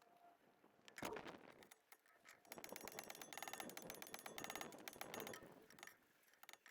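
A ratchet wrench clicking rapidly for about three seconds, with a single knock about a second before it.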